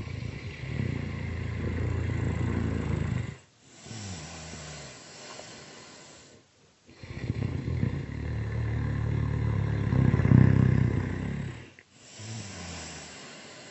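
Loud snoring: two long, rattling snores, each followed by a quieter breath.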